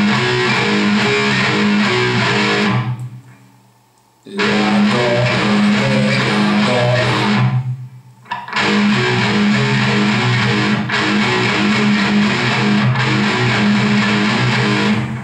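Electric guitar playing a power-chord riff on A, C, A and D, tuned down a half step so it sounds in A flat. It plays three passes, the first two each cut off with a short silence about 3 and 8 seconds in.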